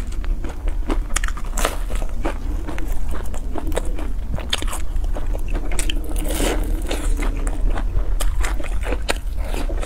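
Close-miked chewing and biting of fried dough sticks (youtiao): irregular crisp, crunchy clicks and wet mouth sounds, with a steady low hum underneath.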